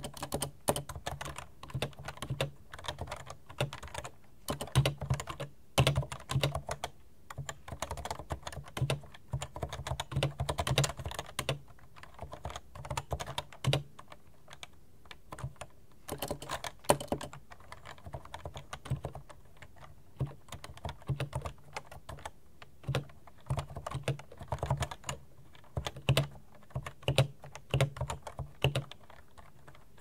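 Touch typing on a Realforce 87U tenkeyless keyboard with Topre switches: runs of quick keystrokes in bursts, broken by short pauses.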